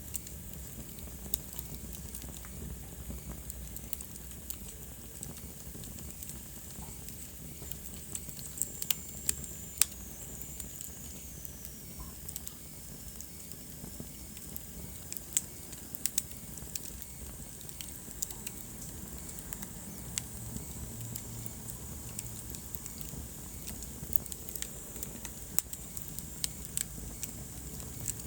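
Wood fire crackling in a fireplace: irregular sharp pops and snaps over a steady low hiss and rumble, with a faint high whistle that falls in pitch about nine seconds in.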